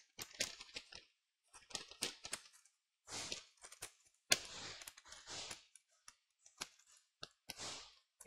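Scattered light clicks and taps with short stretches of rustling as small laptop parts and cables are handled and fitted into the chassis; the sharpest click comes about four seconds in.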